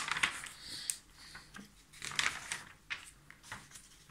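Magazine pages being turned and pressed flat by hand: a string of short paper rustles and swishes.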